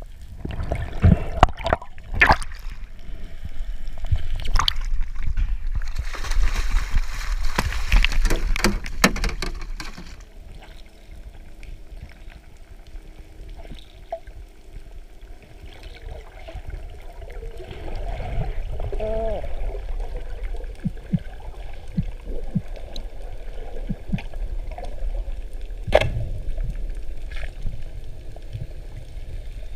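Underwater water noise picked up through an action camera's housing: water rushing and bubbling, loudest for a few seconds in the first third, with several sharp knocks in the first couple of seconds and another near the end.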